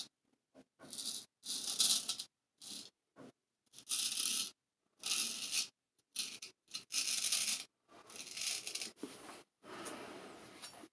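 Straight razor (Person Special, Solingen) scraping a few days' stubble through thick lather in short strokes: about ten crisp rasps, each under a second long. This is the first pass, with the grain.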